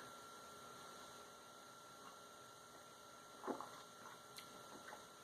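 Near silence: room tone with a faint steady electrical hum, and one faint brief sound about three and a half seconds in.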